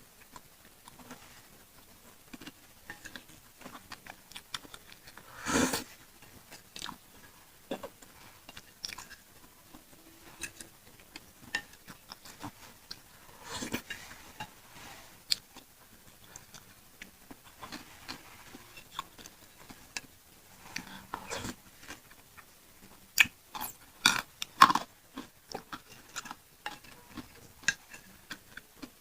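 Close-miked chewing of pentol (Indonesian meatballs) in chili sauce: soft wet mouth clicks, with a few louder bites, one a few seconds in, one about halfway and a cluster near the end.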